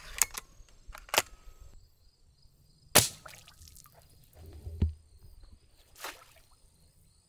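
Suppressed break-barrel pellet rifle, not CO2-powered, cocked with sharp metal clicks, then fired once about three seconds in with a single sharp shot. A dull thump follows, then a landing net splashes into the pond water about six seconds in.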